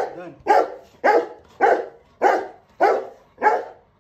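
Rottweiler barking repeatedly in a steady rhythm, a little under two loud barks a second, in excitement at its owner's return.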